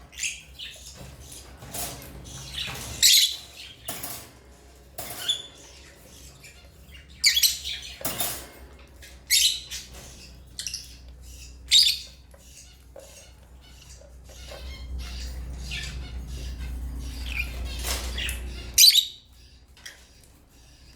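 African lovebirds chirping, many short high-pitched calls coming irregularly, with the loudest about three seconds in, around seven to twelve seconds, and near nineteen seconds. A low hum builds underneath in the second half and cuts off suddenly just after the last loud call.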